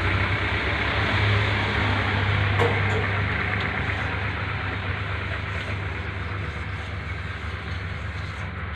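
An engine running steadily with a low hum, slowly growing fainter.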